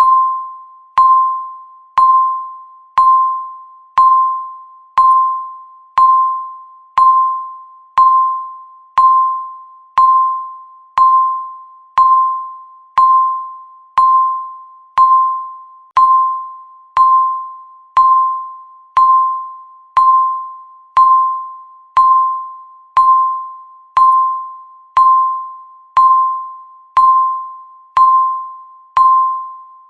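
Countdown timer's electronic tick: a short beep near 1 kHz, once a second, each dying away before the next.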